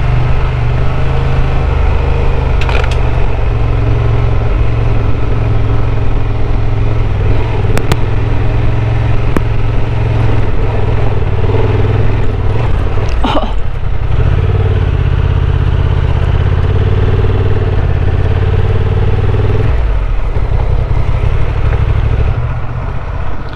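Honda XL750 Transalp's parallel-twin engine running steadily at low speed while the bike rides over a gravel track. Stones crunch under the tyres, and a few sharp knocks come through.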